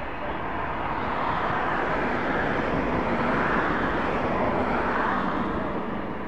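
Engine noise of a passing vehicle, swelling to a peak in the middle and fading away again.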